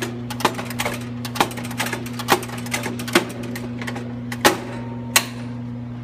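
Closing springs of a GE AKD Wavepro low-voltage power circuit breaker being charged by hand with its charging handle: ratcheting clicks, a sharp clack about once a second among lighter clicks, stopping about five seconds in. A steady electrical hum runs underneath.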